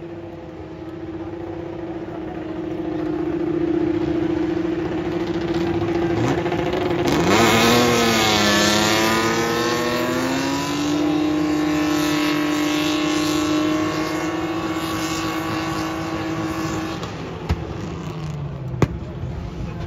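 Drift cars spinning donuts, their engines held high in the revs with tyres spinning in smoke. About seven seconds in the revs dip and climb again with a burst of tyre noise, then hold steady before dropping off near the end, followed by two sharp cracks.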